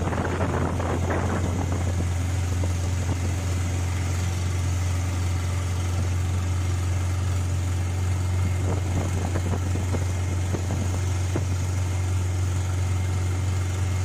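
Long-tail boat's stern-mounted engine running steadily at cruising speed, a constant low drone over the rush of water past the hull.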